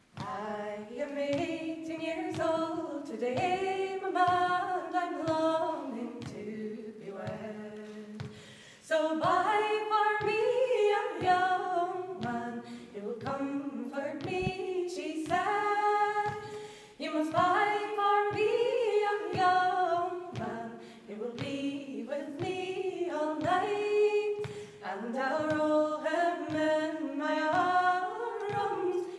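Three women's voices singing a traditional song together, unaccompanied, in sung lines with short breaths between them.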